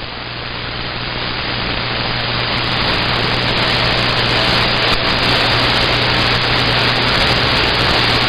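CB radio receiver hiss and static: a steady rush with a low hum under it, slowly growing louder, then cutting off sharply at the end as the transmission drops and the squelch closes.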